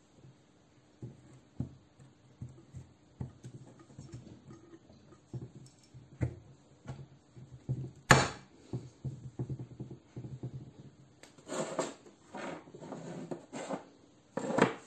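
Hand work with tools and metal parts: a run of light clicks and knocks, one sharp knock about eight seconds in, and several seconds of scraping and rustling near the end.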